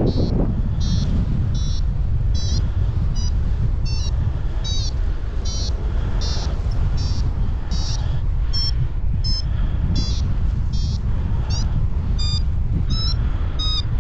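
A paragliding variometer beeps in short, high, chirping tones, about one and a half a second, the sign that the glider is climbing in lift. Under it runs a steady rush of wind on the microphone.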